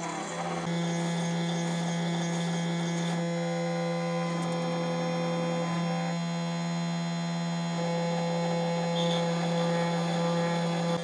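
Pocket NC desktop CNC mill running while machining an aluminium part: a steady low spindle hum, with layered motor tones that change pitch every second or two as the axes move.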